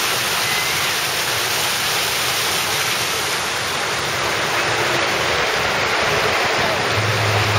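A steady, even rushing noise with no breaks; a low hum joins in near the end.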